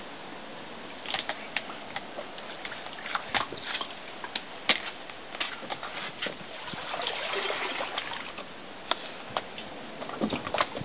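Paddle working water beside a small inflatable boat: light splashes and water trickling off the blade, with scattered small sharp clicks and knocks.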